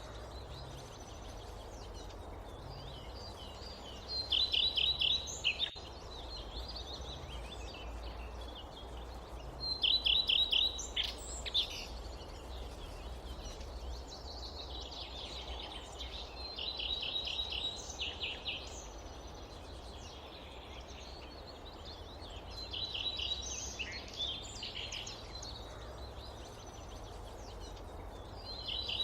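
Forest birds singing: a phrase of quick, high, evenly repeated notes comes back about every six seconds, with scattered chirps between. Under it runs a steady low background rumble and hiss.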